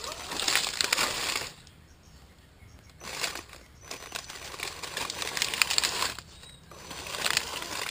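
RC crawler's tyres rolling over dry leaf litter and twigs: crinkling and crackling in uneven bursts, with a lull of about a second and a half early on.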